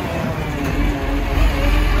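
Garbage truck running, a low engine rumble under a wavering whine that drifts up and down in pitch.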